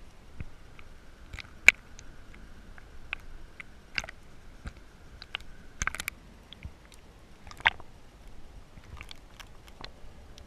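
Irregular sharp clicks and snaps, picked up underwater over a coral reef, two of them much louder than the rest. A faint steady whine runs under the first half.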